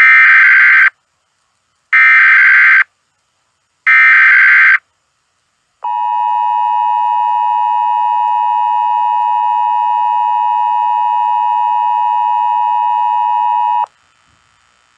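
Emergency Alert System SAME header: three short bursts of warbling data tones, about a second apart. Then the EAS two-tone attention signal holds steady for about eight seconds and cuts off suddenly.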